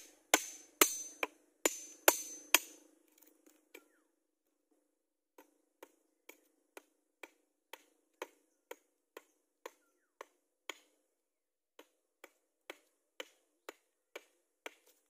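A hammer strikes the spine of a curved machete blade set into the top of a wooden post, about six loud blows in the first three seconds, each with a metallic ring. After a short pause the machete chops into the end of the post in steady strokes, about two a second.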